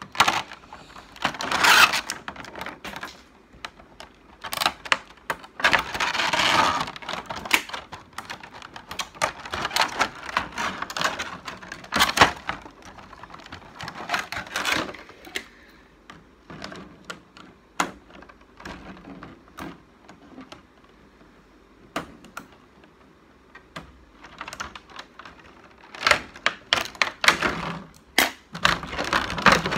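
Clear plastic blister packaging being cut with scissors and prised apart: irregular sharp clicks and snaps with bursts of crinkling plastic, busiest near the start, around the middle and near the end.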